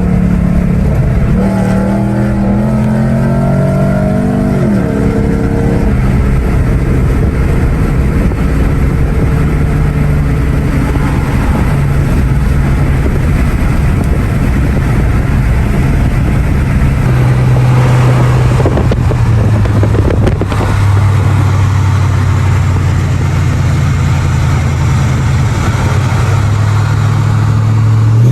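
M113 V8 engine and exhaust of a Mercedes-Benz W124 E500 running under way, holding fairly steady revs with a few shifts in pitch, then revving up sharply near the end.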